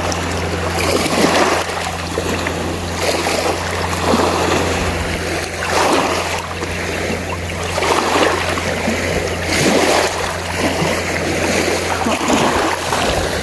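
Water sloshing and splashing in repeated swells, about one every second and a half, over a steady low hum.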